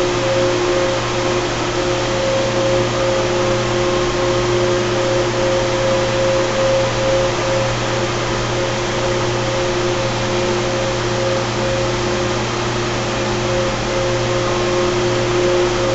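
Carrier 30HX chiller's screw compressors running steadily: a constant machine hum with two steady whining tones over an even hiss.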